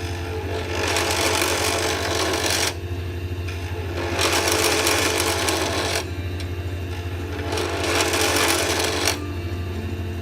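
Lathe motor running with a steady hum while a tool is pressed against the spinning acrylic pen blank in three passes of about two seconds each, each pass a scraping hiss.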